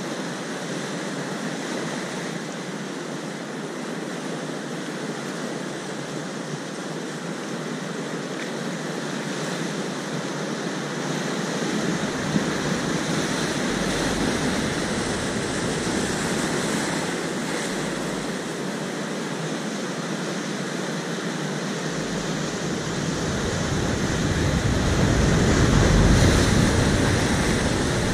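Sea surf washing and breaking against shore rocks, a steady rush that swells into a louder surge near the end.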